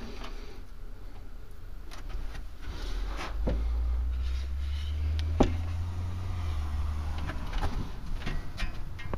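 A series of light clicks and knocks, one sharper click about halfway through, over a low rumble of the handheld camera being moved around inside the motorhome.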